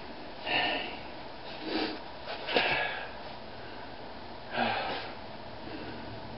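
A man's short, sharp breaths through the nose, four in all, a second or two apart, as he catches his breath after bending a steel nail by hand.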